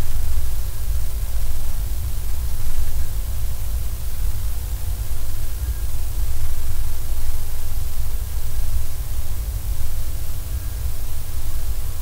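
Vibration of a small glass light-bulb-globe aquarium picked up by a laser vibrometer, with a red ramshorn snail grazing on its inside: a steady hiss over a loud, uneven low rumble, with no distinct bites standing out.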